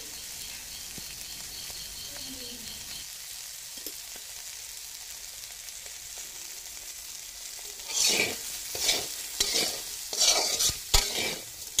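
Insect pupae and onions frying in a metal pan with a steady quiet sizzle. From about eight seconds in, a plastic spoon stirs and scrapes through them against the pan in a run of quick, uneven strokes.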